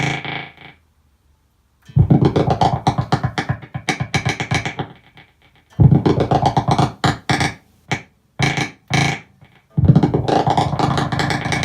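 Electric guitar played through a custom effects patch: phrases of rapidly pulsing, repeated notes. The playing breaks off into short gaps and choppy stabs, starts after a brief silence about two seconds in, and comes back in bursts.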